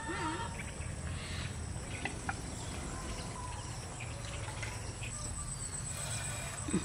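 Insects keeping up a steady high-pitched drone, with scattered short bird chirps over it.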